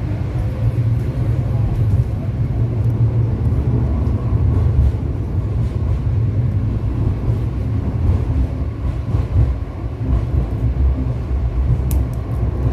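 MTA light rail car running along the line, heard from inside the passenger cabin: a steady low rumble from its motors and its wheels on the rails. A few faint clicks come near the end.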